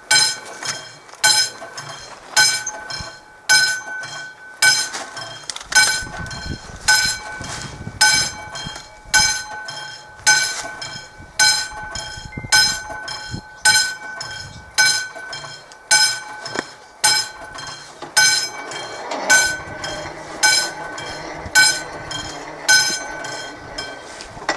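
Level-crossing warning bell of an AŽD 71 signal ringing with evenly spaced strokes, the crossing's warning active for an approaching train.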